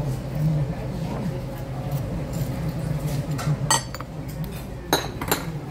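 Metal table knife clinking against a ceramic plate: a few sharp clinks in the second half, over a steady low hum of background noise.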